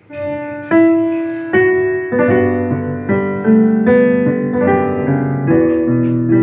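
Slow piano music beginning abruptly, with sustained chords struck roughly once a second and fading between strikes; no singing.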